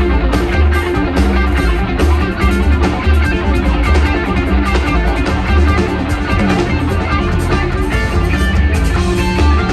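Live rock band playing an instrumental passage: electric guitar over bass guitar and a drum kit keeping a steady beat.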